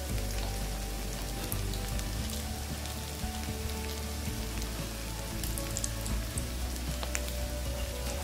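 Chicken shami kababs shallow-frying in hot oil: a steady sizzle with scattered small crackles.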